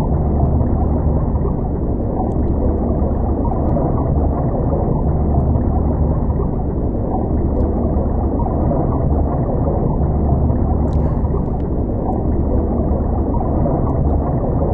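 Steady, deep underwater rumble with a gurgling quality, unbroken throughout.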